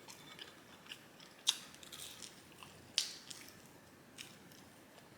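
A person chewing and biting pizza close to the microphone: scattered small crisp clicks and crunches, two sharper ones about a second and a half and three seconds in.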